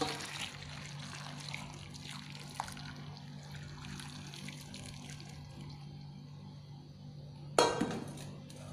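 Just-boiled water pouring in a thin stream onto sliced papaya in a basin, a steady soft trickling splash. Near the end a single sharp metallic clank rings briefly.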